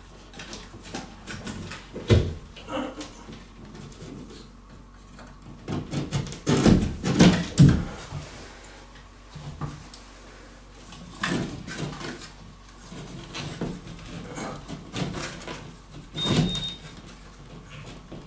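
Irregular knocks, taps and rustles from hands handling a recessed LED ceiling light fixture, loudest about six to eight seconds in, with a brief high squeak about sixteen seconds in.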